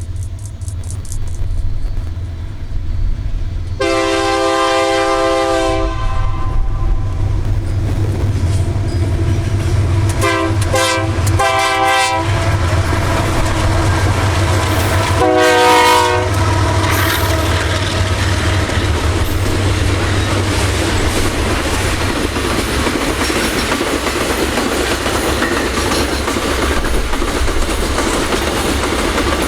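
Freight train's diesel locomotive horn: one blast of about two seconds, a quick run of short blasts, then a one-second blast, over the steady drone of the locomotive engines. The train then passes with a continuous clatter of wheels over the rails.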